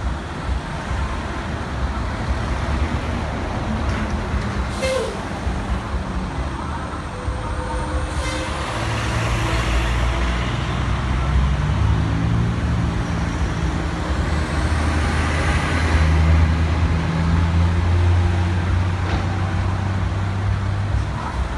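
A heavy vehicle's engine running steadily with a low rumble. It grows somewhat louder in the middle, and two sharp clicks come early on.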